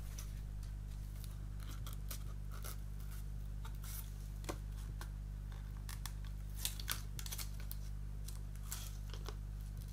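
Clear protective plastic film on a photo-etched metal fret crinkling and crackling as it is handled and peeled back: scattered short crackles and clicks, the sharpest about seven seconds in, over a steady low hum.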